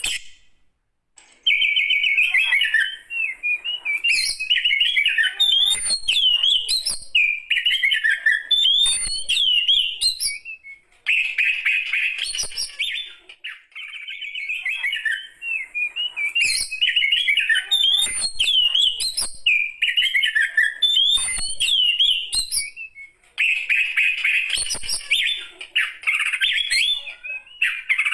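Oriental magpie-robin (kacer) singing long, varied phrases of quick whistles, trills and chattering notes, broken by brief pauses about a second in and twice more later.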